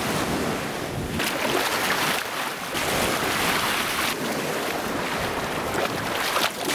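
Water splashing in shallow surf as hands grab at a crab, over the steady wash of small waves.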